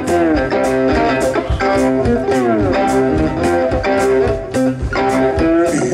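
Blues music led by an electric guitar playing bent, sliding notes over bass and a steady drum beat.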